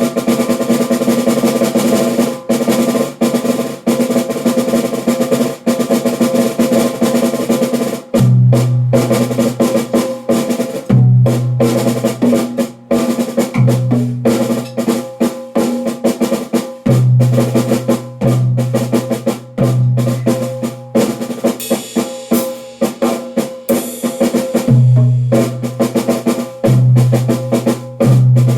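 Drums played in fast, continuous strokes, close to a drum roll, with a ringing snare-like tone. From about eight seconds in, deep low notes join every second or two.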